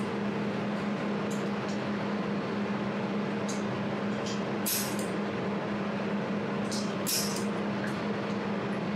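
200W desktop jewelry laser welder running with a steady hum, while about eight short, sharp snaps come at irregular intervals, the loudest around five and seven seconds in. The snaps are typical of single laser pulses striking a small hand-held metal part.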